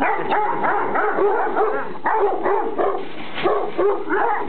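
Dogs barking in a fast, continuous run of short barks, several a second, at overlapping pitches.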